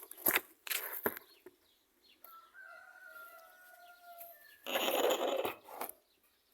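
A chicken gives a drawn-out call of a couple of seconds. It is followed about five seconds in by a loud, noisy flurry of about a second. There are a couple of sharp knocks near the start.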